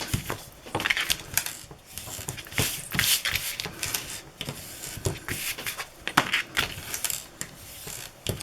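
Bone folder rubbing and pressing over freshly glued card and paper: a run of irregular scraping strokes and light taps.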